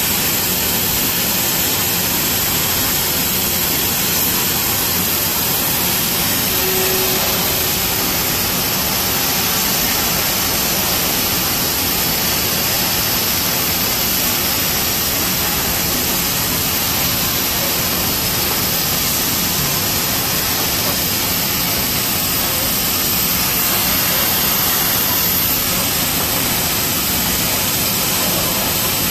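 Industrial CNC laser cutter cutting sheet-metal panels: a steady, loud hiss of gas rushing from the cutting head, unchanging throughout.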